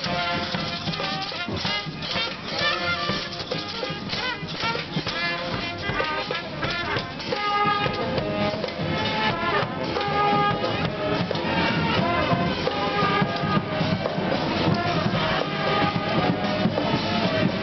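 A street brass band playing, horns holding notes over a steady beat of drums.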